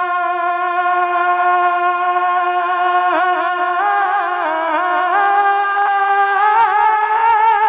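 A man singing a naat, holding one long melismatic note that wavers in ornaments about three seconds in and steps up slightly in pitch about five seconds in.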